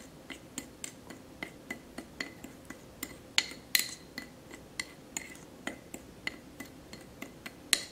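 Metal spoon stirring a dry salt and spice mix in a ceramic bowl, clinking and scraping against the bowl about three times a second, with a couple of sharper clinks around the middle.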